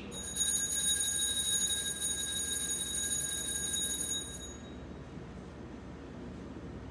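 Altar bell rung at the elevation of the consecrated host: a steady, high, shimmering ring that stops about four and a half seconds in.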